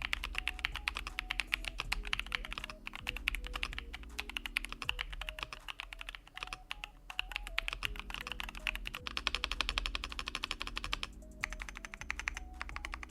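Royal Kludge RK98 mechanical keyboard typed on quickly and continuously: the clacking of factory-lubed RK Chartreuse linear switches under PBT double-shot Cherry-profile keycaps on a steel plate, with brief pauses about five and eleven seconds in.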